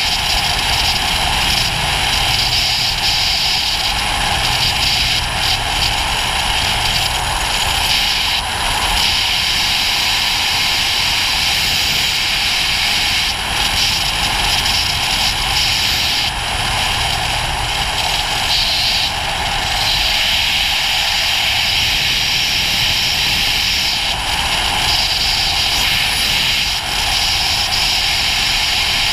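Ducati GT1000's air-cooled L-twin engine running steadily at riding speed, with its low drone easing up and down slightly, under a loud, steady rush of wind and road noise.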